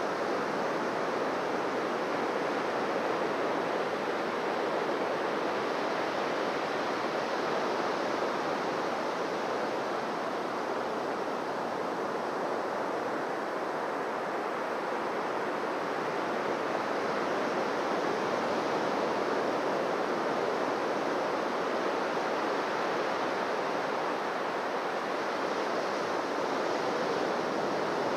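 Surf washing onto a beach: a steady rushing of waves that swells gently now and then.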